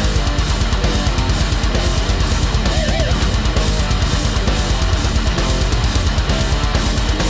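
Heavy metal music with distorted guitars and a fast, steady bass-drum beat.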